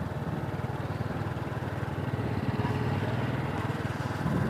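A vehicle's engine running steadily.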